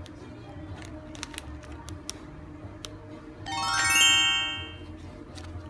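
A fast rising run of ringing chime notes, an edited-in cartoon sound effect, climbing quickly in pitch about three and a half seconds in and fading a second later. It plays over a quiet steady background with a few faint clicks.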